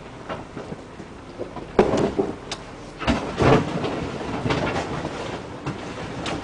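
A Nissan Pathfinder R50 crawling down a rocky trail, its skid plates dragging and scraping over rock and dirt, with irregular clunks and knocks from the underbody and a rattling body. The heaviest scrape comes about three seconds in.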